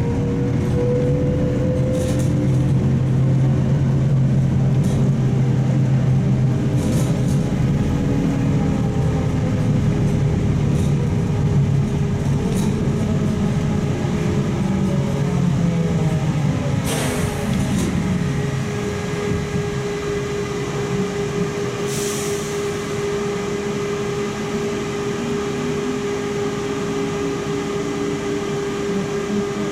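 Inside a moving Trolza-5265 Megapolis trolleybus: the electric traction drive whines in steady tones over road rumble, and its pitch glides about seventeen seconds in. The rumble eases after about eighteen seconds, and a few short hisses break through.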